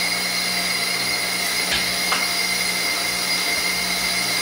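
Steady mechanical hum with a high whine and hiss, unchanging throughout, with two faint clicks near the middle.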